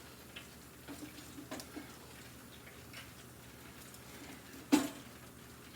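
Hot oil in a Masterbuilt deep fryer crackling faintly with scattered light ticks and pops over a low hum. One sharp, louder click or knock comes near the end.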